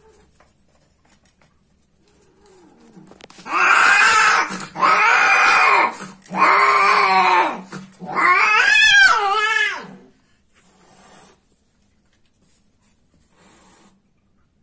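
Domestic cat yowling during mating. A low rising moan leads into four long, loud yowls in quick succession, and the last one wavers up and down in pitch before it stops.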